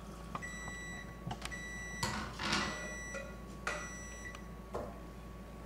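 An electronic appliance timer beeping four times, about a second apart, over the clatter of cooked pasta being tipped from a plastic strainer into a glass bowl and stirred with a spoon, the loudest clatter about two seconds in.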